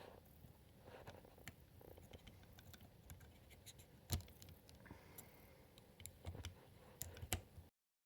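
A USB plug scraping and clicking against a port as it is fumbled into place. There are scattered small clicks, a sharper click about four seconds in, and two more near the end.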